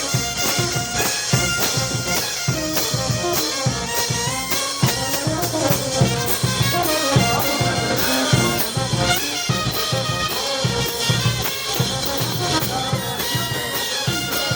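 Brass band with trumpets and trombones playing a lively dance tune over a steady beat.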